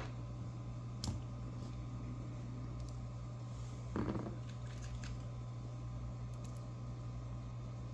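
Small metal parts of a disassembled padlock being handled: a sharp click about a second in, a short scrape about four seconds in and a few faint ticks, over a steady low hum.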